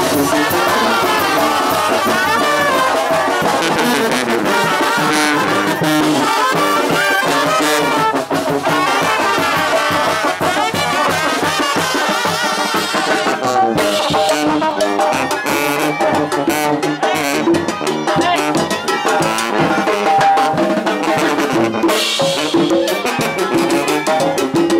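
Oaxacan brass band playing live, with trumpets and trombones over drums and crash cymbals, loud and continuous.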